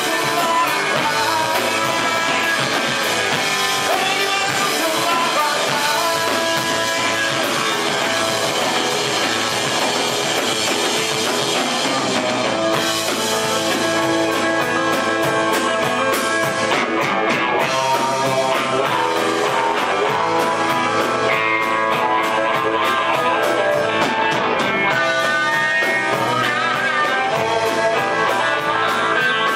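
Live rock band playing: electric guitar over a drum kit, with some singing.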